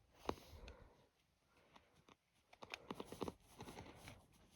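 Faint clicks and light taps of a small metal brooch being handled: one just after the start, then a cluster of small clicks in the second half.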